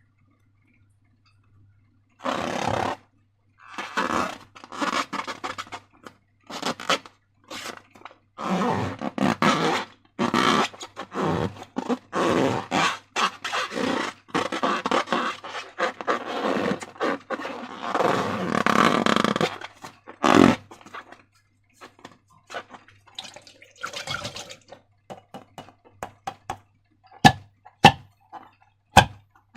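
Slime squelching and squishing in irregular wet bursts as it is worked by hand, with a few sharp clicks near the end.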